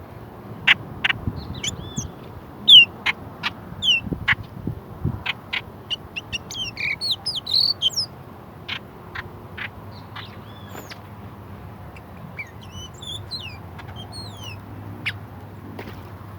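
Garden birds calling, short chirps that slide downward in pitch, with a busier burst of calls about halfway through, mixed with irregular sharp taps.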